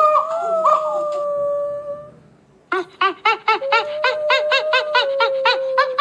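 Monkey calls: one long, steady whining call, then after a brief pause a rapid run of short rising-and-falling calls, about four a second, with a second held call running under them.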